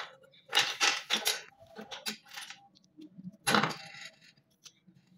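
Small plastic gears clicking and clattering against each other, on a metal axle and onto a concrete surface as they are handled, in three short bursts with a few lone ticks between.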